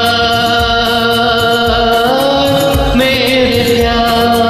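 Bollywood-style karaoke backing track in an instrumental interlude: a melody of long held notes that glide to a new pitch about two seconds in, over a steady percussion beat.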